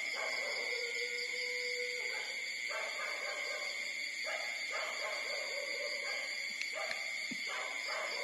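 Young puppies whimpering and whining in a string of short calls, with one drawn-out whine about a second in, over a steady high-pitched background tone.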